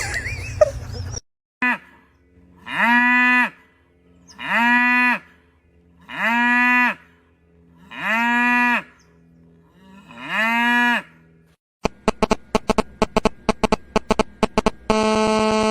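Five moo calls, each about a second long with a pitch that rises and falls, evenly spaced about every 1.8 seconds over a faint steady hum. A rapid run of clicks follows, then a steady electronic tone begins near the end.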